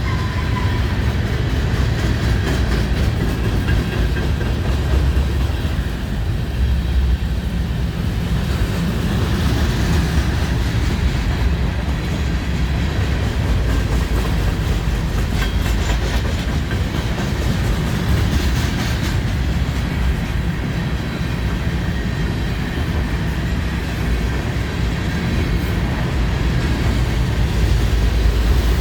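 BNSF freight train rolling past close by: a steady, loud rumble of rail cars and their wheels on the track, with occasional faint clicks.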